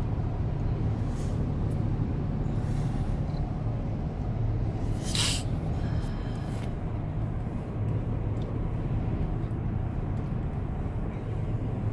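Steady road noise inside a moving car: a low hum from the engine and tyres. A short, sharp hiss cuts in about five seconds in.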